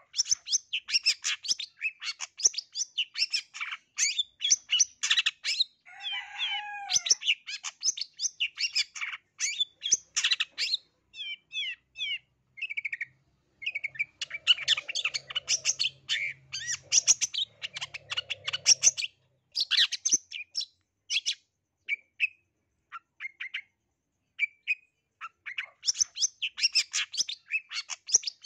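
Long-tailed shrike (black-headed 'blangkon' cendet) singing a fast, continuous jumble of varied chattering and mimicked notes. A lower warbled phrase comes about six seconds in, and the song thins to scattered single notes for a few seconds late on before it picks up again.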